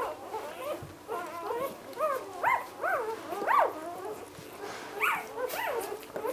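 Newborn puppies squeaking and crying: a string of short, high squeaks that rise and fall in pitch, a few each second and sometimes overlapping, loudest around the middle.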